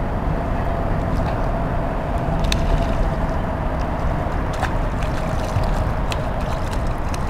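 Steady low rumble of distant engines with a thin steady hum running through it. A few light clicks come about two and a half, four and a half and six seconds in.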